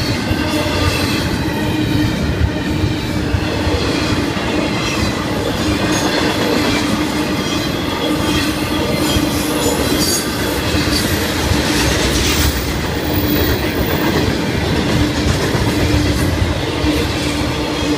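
Florida East Coast Railway freight cars rolling past at close range: loud, steady wheel-and-rail noise with a constant tone running through it.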